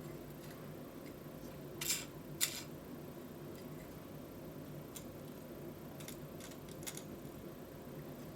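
A few small clicks and taps from handling the 3D-printed plastic clock parts, two clearer ones about two seconds in and fainter ones later, over a low steady room hum.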